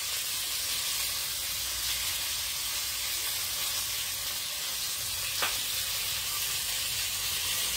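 Steady sizzling of food frying in a pan on the stove, with a single small click about five seconds in.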